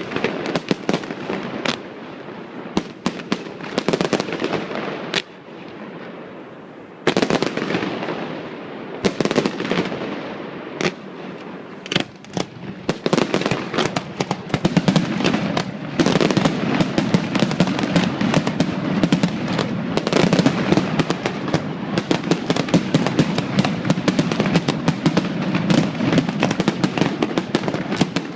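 Fireworks display going off: a rapid stream of pops and crackles with heavier bangs over a low rumble. It thins briefly about five seconds in, then grows denser and more continuous through the second half.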